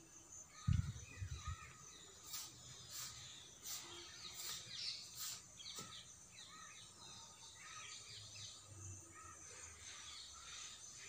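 Birds chirping and calling, with short sharp calls repeating through the middle, over a steady high insect buzz. A brief low thump about a second in.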